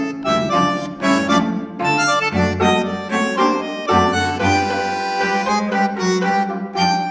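Instrumental background music: a quick melody of short, steady-pitched notes over a pulsing low bass line.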